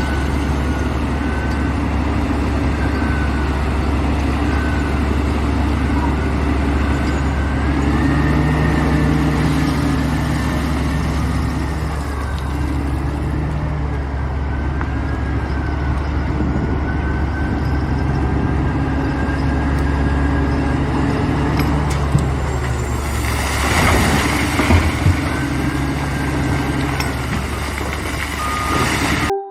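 Heavy truck or construction-machine engine running steadily, its pitch shifting now and then, with a burst of hiss about three-quarters of the way through.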